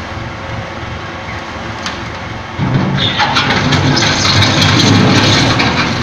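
Diesel engine of a concrete mixer pump running steadily; about two and a half seconds in it comes under heavier load with a deeper, louder rumble, joined by a loud rushing, clattering noise for the last three seconds.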